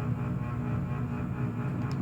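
Background music of sustained, steady tones.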